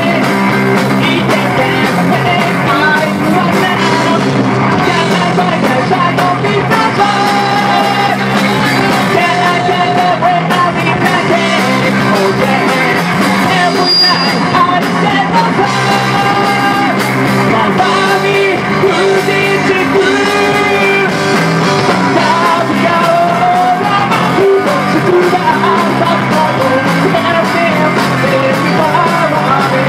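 Live rock band playing loud, steady rock: electric guitar, bass guitar and drums, with a lead vocal sung over them.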